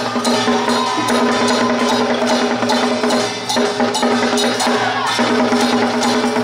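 Temple-troupe percussion band playing a fast, steady beat of drum and wood-block-like strikes, with held, steady pitched tones sounding over it that break off briefly a few times.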